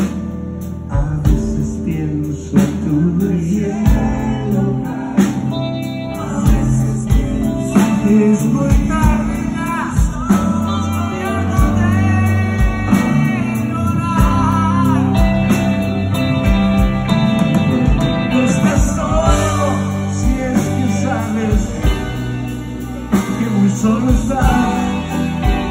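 Live rock band playing an instrumental passage: a lead guitar solo of bent, sliding notes over bass and drums.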